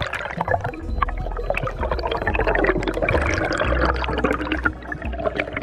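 Underwater bubbles gurgling and water rushing past an action camera, with many small clicks and crackles.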